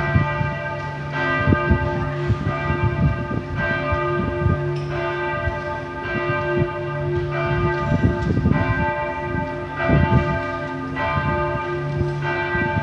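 Berlin Cathedral's church bells ringing in full peal. Strokes come about a second apart, each one ringing on into the next.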